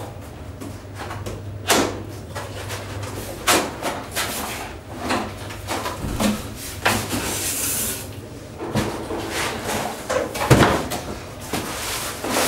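Cardboard box being unpacked: flaps folded back, packing paper rustling and a polystyrene foam packing block lifted out. There are irregular knocks and scrapes throughout, a rustle about seven seconds in, and a heavy thump about ten seconds in.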